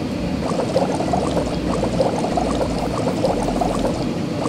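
Cartoon bubbling, sudsy liquid sound effect for a car-wash brush lathering a car with soap: a dense, steady run of quick bubbly pops.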